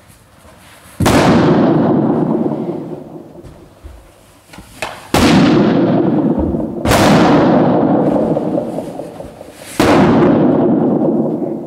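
Latex balloons being squeezed in a hug until they burst: four loud bangs, each followed by a long echo that dies away over a couple of seconds in a large sports hall, with a small snap shortly before the second bang.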